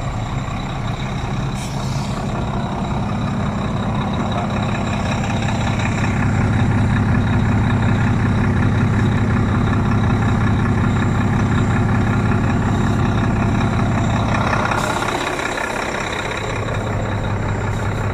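Heavy diesel truck engine idling with a steady low hum that grows louder a few seconds in and eases off near the end, with two short hisses.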